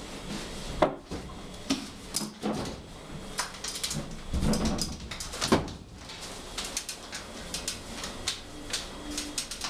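Knocks and thumps of a person clambering in through a window frame and onto a folding camp bed, the loudest knock about a second in and another around five and a half seconds in. After that come light ticking and rustling as he crawls across the bed, which is strewn with torn paper.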